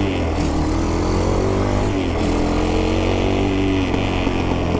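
ATV engine accelerating hard. Its pitch climbs, drops suddenly about two seconds in at a gear change, climbs again and then holds steady near the end.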